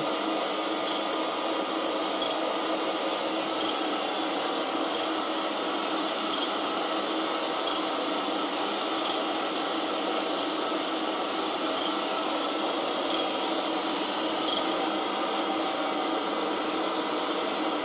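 Surface grinder running steadily, its wheel spinning over the table, during a light dry pass to clean up the top edges of steel blocks clamped on the magnetic chuck.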